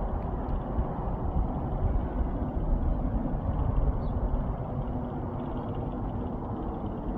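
Steady low rumble of outdoor background noise, heaviest in the bass, with a faint steady hum running through it and no distinct events.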